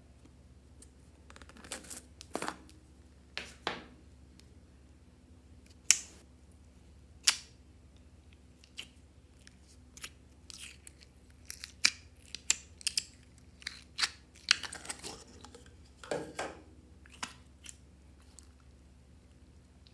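A clear plastic slime jar being handled and its screw lid opened: scattered sharp clicks, taps and short crackling scrapes of fingers and nails on hard plastic, coming thickest in the second half as the slime is taken out.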